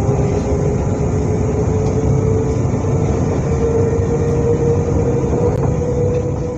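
SNCF Z 20500-series (Z 2N) double-deck electric multiple unit running, a steady heavy rumble with a faint whine slowly rising in pitch as it gathers speed.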